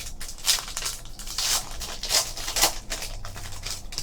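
Trading card pack wrapper and cards being handled: a run of short crinkling and rustling sounds as the wrapper is torn open and the cards slide against each other.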